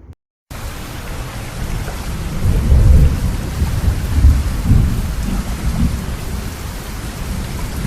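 Heavy rain falling with rolling thunder. The steady downpour starts about half a second in, and deep thunder rumbles swell over it twice, at about three and about four and a half seconds.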